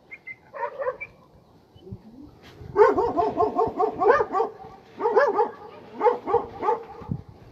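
Stray dogs barking: a few short calls about a second in, then two quick runs of barks, several a second, with a brief pause between them.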